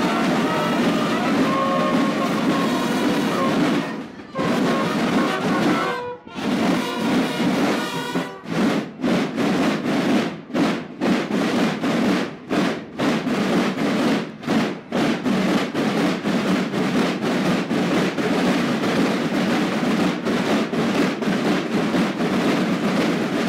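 A children's drum and bugle band: bugles sound held notes over snare drums for about the first eight seconds, then the snare drums carry on alone with a fast, even beat.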